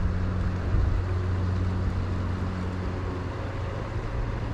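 Wind buffeting the microphone over flowing river water: a steady rushing noise with a strong low rumble.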